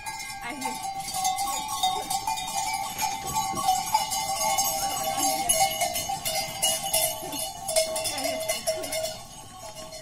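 Bells worn by a herd of goats clanking and jingling continuously as the herd crowds past, easing off near the end as the last goats go by.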